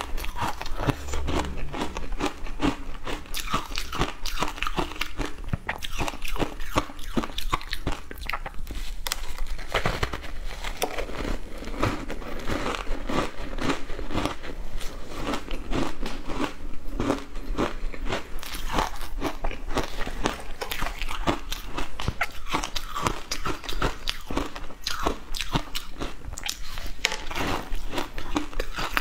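Close-miked biting and chewing of shaved ice coated in milk powder: a steady stream of sharp, crackly crunches.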